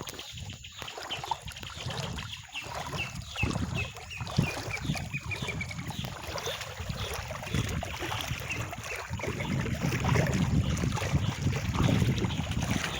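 Wind buffeting the microphone over a steady rushing noise, growing stronger in the second half. In the first few seconds a bird calls a quick run of short notes that fall in pitch.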